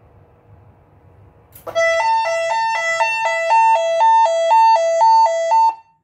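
Fire alarm voice-evacuation speaker sounding a loud two-note alert tone, a low and a high note alternating about twice a second. It starts with a click just under two seconds in and cuts off near the end. It is the attention tone that comes before a spoken lockdown message.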